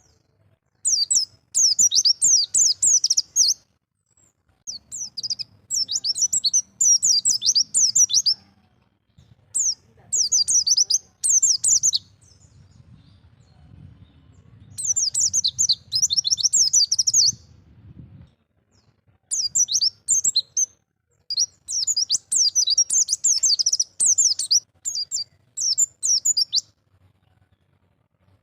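A pleci (white-eye) singing in the wild 'ngalas' style: fast, high twittering phrases of one to three seconds, broken by short pauses.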